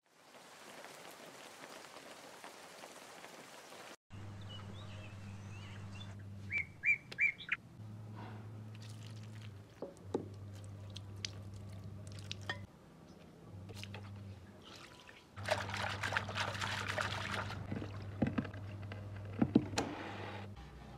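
Rain falling for about the first four seconds, a steady hiss. Then three short bird chirps, scattered knocks as whole watermelons are handled, a low hum that comes and goes, and a stretch of rushing noise about four seconds long near the end.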